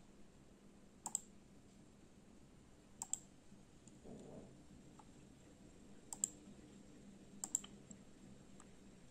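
Computer mouse button clicking four times, each a quick press-and-release pair, faint over a steady low hum.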